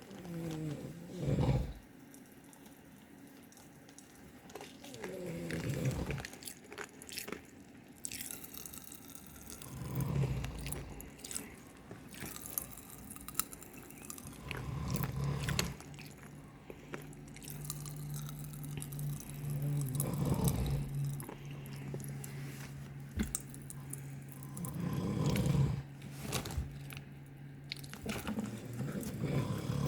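A man snoring in his sleep, each snore swelling and fading about every five seconds, with scattered small clicks between breaths.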